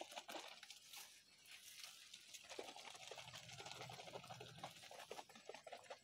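Faint patter and splash of liquid fertiliser flung from a hand-held scoop onto curry leaf foliage.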